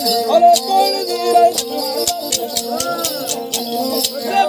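Ravanhatha, the bowed Rajasthani folk fiddle whose bow carries jingle bells, playing a folk melody. The bells jangle in a steady, quick rhythm of sharp clicks over the held bowed notes.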